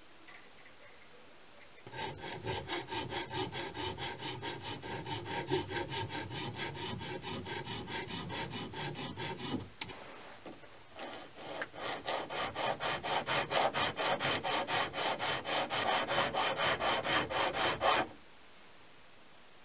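Machined aluminium bearing block rubbed by hand back and forth on sandpaper over a flat stone surface, sanding a face flat: quick, even scraping strokes about four to five a second, in two runs with a short break near the middle, the second run louder and a little faster. The rubbing stops near the end.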